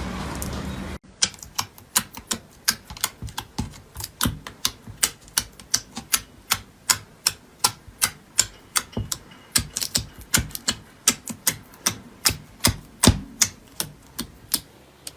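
A long, even run of crisp, sharp clicks, about three a second, starting after an abrupt cut about a second in from a steady hiss.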